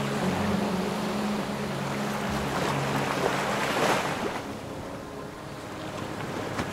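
Sea waves washing in, swelling to a peak about four seconds in and then easing off, over a low sustained musical drone that fades out partway through.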